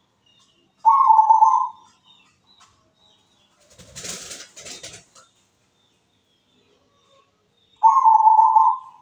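Local zebra dove (perkutut) cooing: two warbling phrases of about a second each, one about a second in and one near the end. A brief, quieter rustling noise comes in between.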